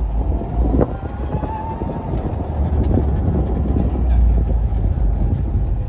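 Wind buffeting the microphone, a heavy low rumble, with a faint rising whine about a second in.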